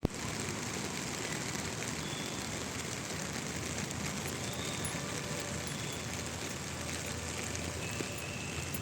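Steady rain falling, an even hiss that holds without let-up, with a few faint short high chirps now and then.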